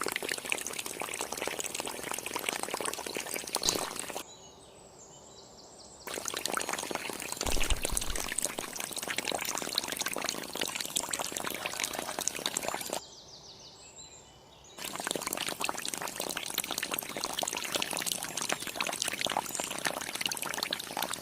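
Water pouring and splashing in a steady, crackly stream that stops twice for about two seconds.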